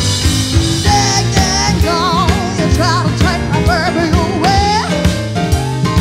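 Live rock band playing: drum kit, guitar and keyboard, with a female singer holding high, wavering notes.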